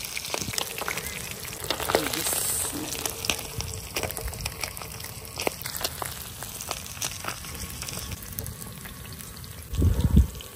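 Fish steaks frying in shallow oil on a large flat tawa: a steady sizzle full of sharp crackles and pops. A low thump about ten seconds in.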